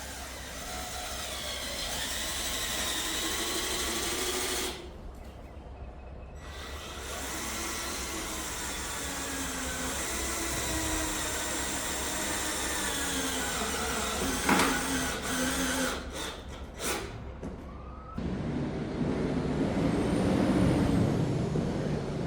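Cordless Ryobi drill driving self-drilling screws through wooden floor boards into the metal beneath. The motor runs in long pulls with a wavering pitch as it loads, with a pause after about five seconds and a few sharp clicks later on. Near the end a steadier low rushing noise takes over.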